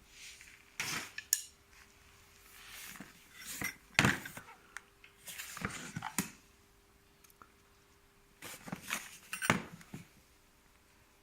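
Hard plastic and cardboard packaging being handled during unpacking: irregular knocks, clicks and rustling in three bursts separated by pauses, the sharpest knocks about four seconds in and near nine and a half seconds.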